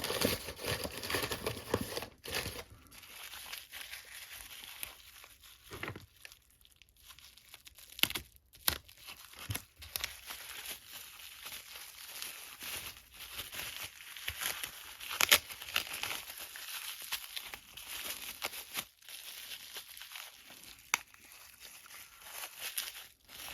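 Wrapping being crumpled and torn open by hand to free a lock, an irregular crinkling with scattered sharp crackles.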